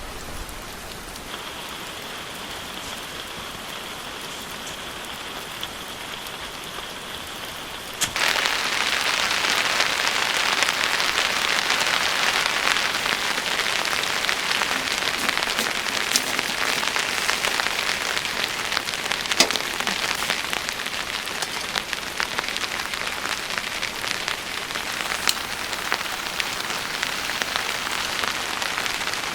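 Steady rain pattering, with occasional louder drops ticking. It is softer at first, then becomes suddenly louder and denser about eight seconds in.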